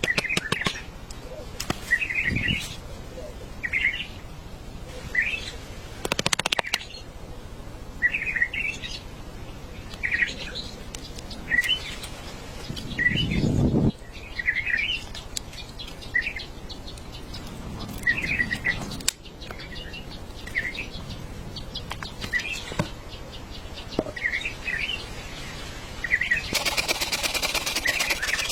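A small bird chirping over and over, short calls every second or two. Two bursts of rapid ticking or pattering, one about six seconds in and one near the end, and a low rumble about halfway through.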